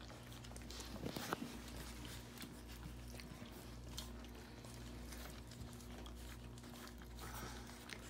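Several puppies faintly lapping and smacking at gruel in a stainless steel feeding saucer, with small wet clicks scattered throughout: their first solid food at weaning.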